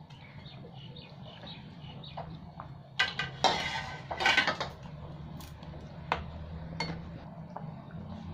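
Metal spatula scraping and knocking against the pan while stirring a bubbling curry: a few loud scraping strokes around the middle, then a few sharp clinks.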